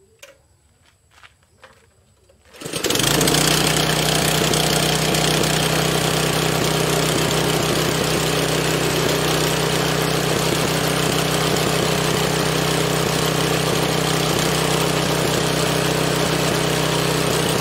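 Small four-stroke petrol engine starting after a few faint clicks, about three seconds in, then running steadily at a constant speed while it turns a car dynamo converted into a generator.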